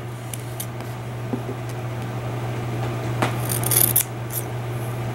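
Scissors snipping off the ends of cotton wicks on a rebuildable dripping atomizer: a few light clicks, then a brief sharper snipping about three seconds in, over a steady low hum.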